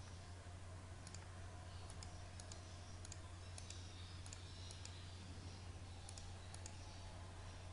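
Faint computer mouse clicks, a dozen or so at irregular intervals, as objects are picked on screen one after another, over a steady low hum.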